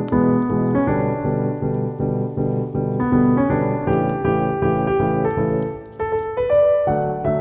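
Background piano music: chords struck in a steady rhythm with a melody above, thinning out briefly about six seconds in.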